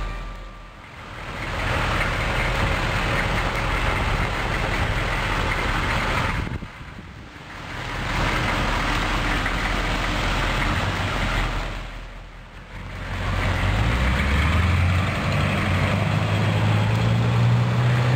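A military utility truck's 6.2-litre V8 diesel engine running, heard in three takes broken by brief drops in sound. In the last few seconds its pitch rises steadily as the truck accelerates.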